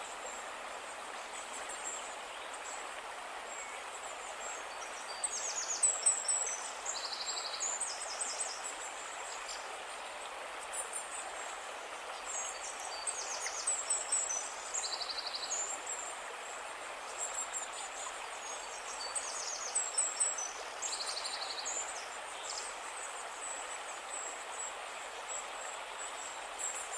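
River water flowing steadily. Over it come high chirping calls with rapid trills, in a phrase that comes back about every seven or eight seconds.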